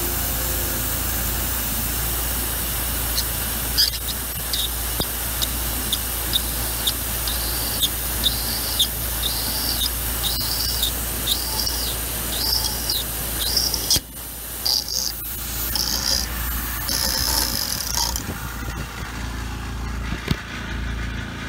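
Tormach PCNC 770 CNC mill peck-drilling a deep hole in aluminium with a long drill bit. The drill gives a short high squeal on each peck, about once a second and each a little longer than the last, over the mill's steady hum. The machinist guesses the spindle speed is too high for deep drilling, causing chip welding that snapped the bit.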